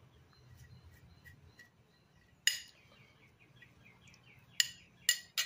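A metal spoon clinks sharply against a ceramic plate while scraping seeds out of grilled jalapeño halves: once about halfway through, then three times close together near the end. Faint bird chirping in the background.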